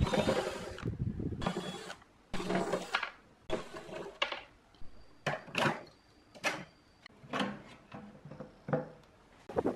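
Hitachi cordless drill/driver running in short bursts as it backs screws out of a steel amplifier chassis, about four runs in the first few seconds. Then a string of short knocks and rattles as the metal case and front panel are handled.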